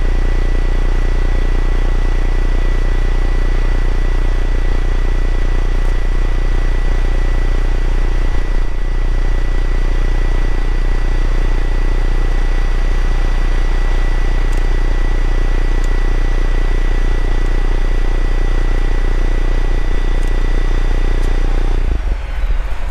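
Truck cab's HVAC blower fan running steadily, with a low droning hum and a thin high whine, then cutting off abruptly near the end; the blower is working again after the AC blower switch repair.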